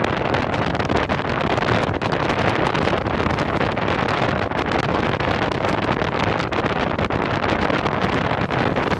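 Steady wind rushing and buffeting over the microphone of a 360 camera mounted on the outside of a moving car, with road noise underneath.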